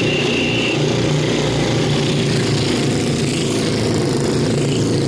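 Stayer pacing motorcycles running at a steady speed as they lap a banked velodrome, their engines giving a continuous low drone.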